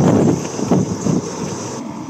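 Wind buffeting the camera microphone in uneven low gusts, swelling strongest in the first moment and again about a second in.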